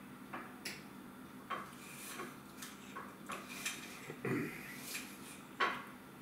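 Mouth sounds of someone tasting a spoonful of hot sauce: faint, scattered lip smacks and clicks, with a short low sound about four seconds in.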